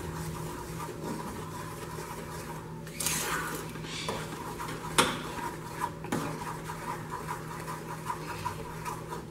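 Wooden spoon stirring and scraping a grainy mixture of sugar, lemon juice and water in a nonstick saucepan on the stove, starting about three seconds in, with one sharp knock of the spoon against the pan about halfway through. A steady low hum underneath.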